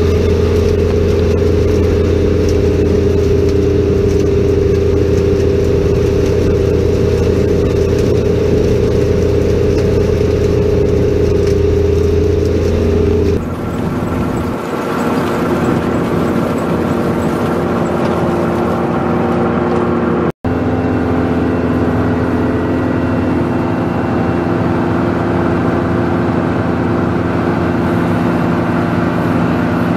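Over-the-row grape harvester running steadily, its engine and machinery making a loud hum. About halfway through the pitch changes as the sound comes from beside the discharge conveyor unloading grapes. The sound cuts out for an instant about two-thirds of the way through.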